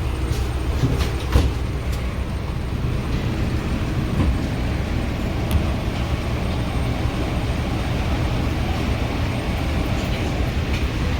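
Steady low engine and road rumble heard from inside an airport apron bus, with a few light knocks and rattles in the first couple of seconds.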